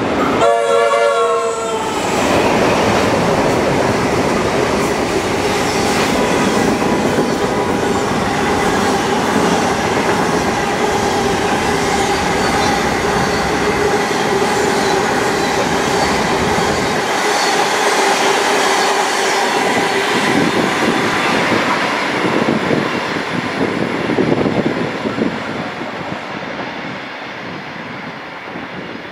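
Diesel-hauled empty grain train passing. The leading P class locomotive sounds its horn for about two seconds. Then the locomotives and a long rake of empty grain hopper wagons roll by with wheels clacking over the rail joints and a steady tone underneath, fading away over the last several seconds as the train leaves.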